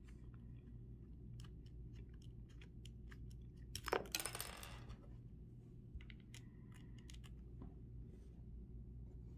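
Faint small clicks and scrapes of a precision screwdriver and fingers working a screw and the plastic mount plate on a gimbal camera, with one short metallic clatter about four seconds in.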